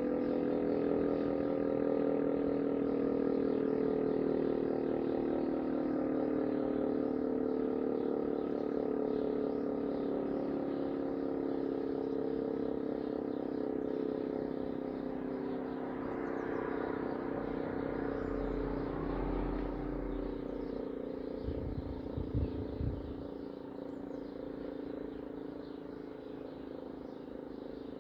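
Electro-mechanical motor sirens, a DS977 and an old S3b, holding a steady multi-toned siren tone that slowly gets quieter. A brief low rumble with a few thumps comes about three-quarters of the way through.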